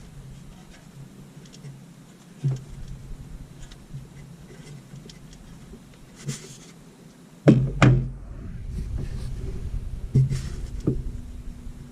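Scattered knocks and clunks, the loudest two close together about two-thirds of the way through, over a steady low hum.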